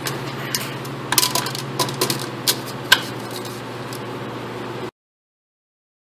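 Light metal clinks and clatter as a new clutch disc, centred on a plastic alignment tool, and the pressure plate are fitted against the flywheel of a 1998 Mazda 626: about six sharp clicks in the first three seconds over a steady low hum.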